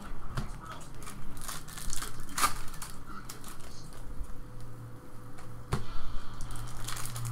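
Stack of glossy trading cards being flipped through by hand: irregular light clicks and snaps of card against card, the sharpest a bit under six seconds in.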